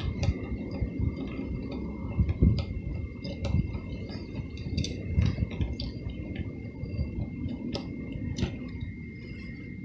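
Utility knife cutting around a rubber garden hose: scraping and creaking as the blade works through the hose wall, with handling noise and a few small sharp clicks.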